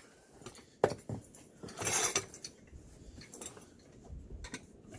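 Metal tire spoons clicking and scraping against a dirt bike wheel rim as the tire bead is levered on: one sharp click about a second in, a scraping rub around two seconds, then a few light taps.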